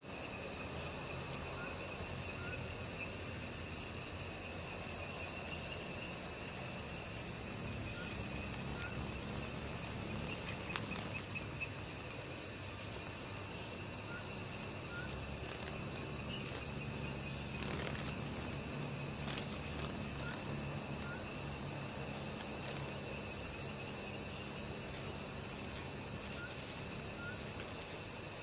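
Steady insect chorus of many chirping and trilling insects, with a few brief scratches or clicks about 11, 18 and 23 seconds in.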